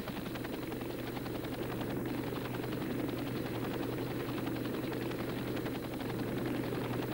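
Helicopter rotor and engine noise, a steady drone.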